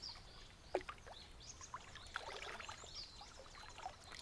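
Gentle water lapping against a small wooden rowboat, with light drips and one small splash just under a second in.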